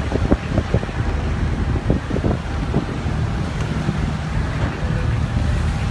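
Storm wind buffeting the microphone on a ferry's open deck, over the rush of rough sea and a steady low rumble from the ship.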